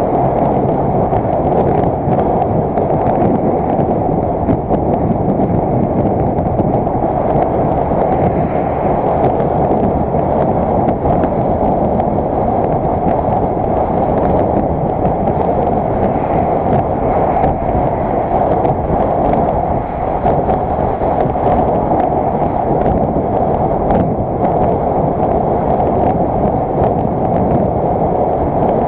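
Steady rush of wind buffeting the microphone of a camera on a moving motorcycle, with road and engine noise underneath.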